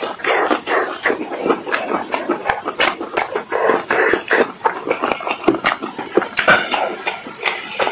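Close-miked chewing of fried breaded food: wet lip-smacking and mouth clicks in a loud, irregular run.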